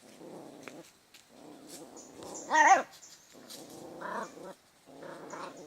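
Dog growling in repeated rumbling bursts of about a second each, with one short, louder yelp-like cry about two and a half seconds in.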